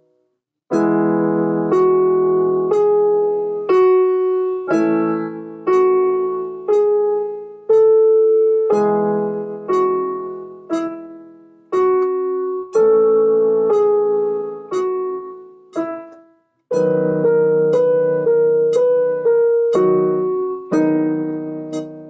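Piano playing a slow piece, chords struck about once a second and left to ring and fade. There is a short break about sixteen seconds in, followed by a quicker passage of notes about two a second.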